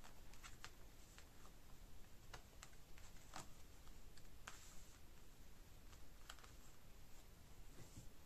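Faint scattered taps and clicks of tarot cards being picked up and laid down on a cloth-covered table, with one short swish of a card sliding about four and a half seconds in.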